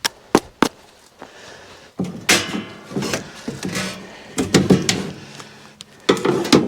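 A door being handled: a couple of sharp clicks, then a run of knocks, scrapes and rattles with faint creaking from about two seconds in.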